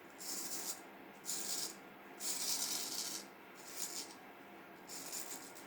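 Vintage Norton straight razor shaving through about a week's stubble under lather, in five short strokes of whiskers being cut.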